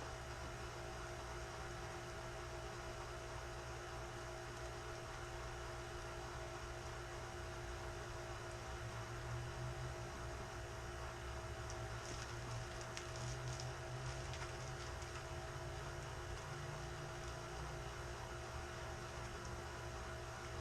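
Faint, steady hum with a low rumble underneath that swells slightly midway.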